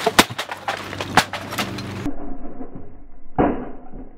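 An RCA shoulder-mount VHS camcorder, dropped from a lift about 30 ft up, hits a concrete platform. There are sharp crashes and clatter, the loudest near the start and another about a second in, then a couple of duller thuds.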